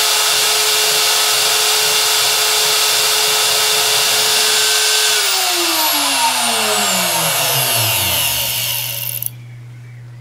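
Spindle motor of a DIY CNC router running with a steady whine, then spinning down: from about halfway through, its whine falls steadily in pitch. The loud running noise cuts off abruptly near the end, leaving a low steady hum.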